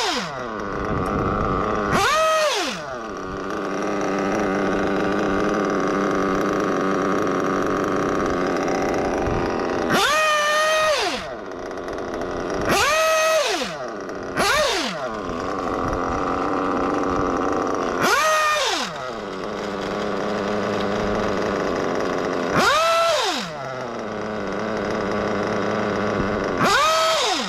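New O.S. Speed B21 nitro engine in a 1/8-scale buggy idling on its first run. Its throttle is blipped about eight times, each blip a high whine that climbs and drops straight back to idle.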